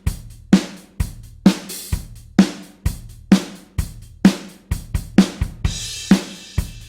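Rock drum kit playing a steady beat: kick drum and snare strokes at an even tempo with hi-hat, and a cymbal crash ringing out near the end.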